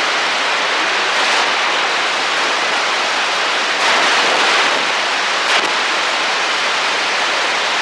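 CB radio receiver hissing with steady static, squelch open and no station readable, swelling slightly a few times. The operator blames the static on his antenna and the rainstorm.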